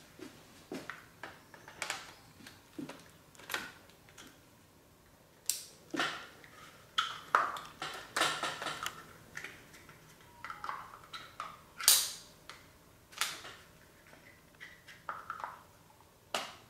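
Irregular clicks, knocks and short rattles of hard plastic and metal photo gear being handled: a radio flash trigger and its fittings on a light stand being attached and tightened by hand. The loudest knock comes about twelve seconds in.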